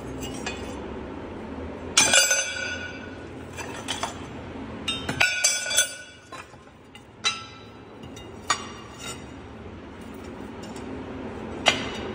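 Pieces of rusty scrap steel clinking and clanking against each other as they are shifted by hand and an old leaf spring is pulled from the pile. The impacts ring on briefly; the loudest clatter comes about two seconds in, a second run around five to six seconds, and a sharp single clank near the end.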